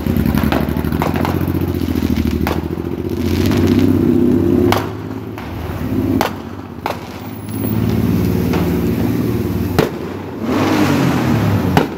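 Consumer fireworks going off overhead with several sharp bangs and some crackle, over the steady low rumble of a vehicle engine running close by.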